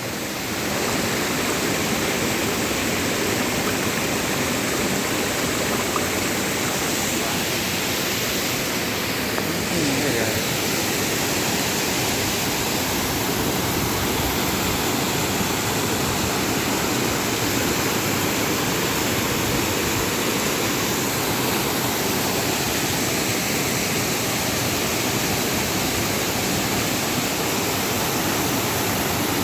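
Waterfall, falling water making a steady, loud rush that holds at one level throughout.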